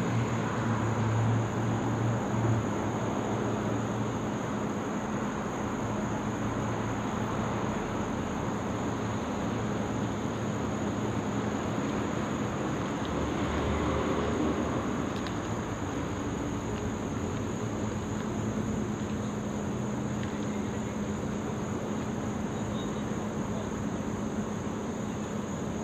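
Faint, distant drone of a Beechcraft 58 Baron's twin piston engines and three-bladed propellers passing high overhead, a low steady hum. A steady high-pitched insect trill runs alongside it.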